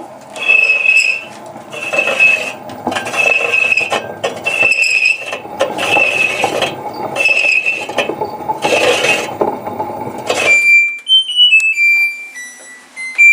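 LG washing machine drum turning with a squeal and scrape that recur about once a second. The drum bearings have fallen apart, so the drum sags and rubs. Near the end the noise stops and the control panel plays a short electronic beep melody.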